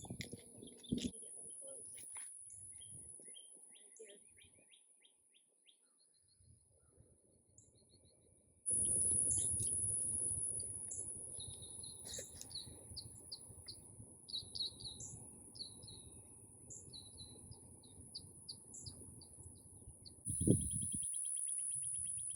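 Birds chirping in short, repeated phrases over a steady high-pitched insect drone. About a third of the way in a low rumbling noise comes in suddenly and stays underneath, with a brief louder low sound near the end.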